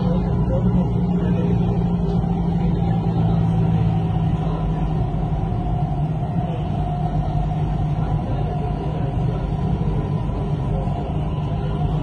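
Dubai Metro electric train running between stations, heard from inside the carriage: a steady low rumble with a hum that eases a little after about four seconds.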